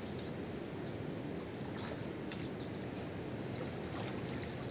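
Steady, high-pitched drone of insects, with a low rushing noise beneath it.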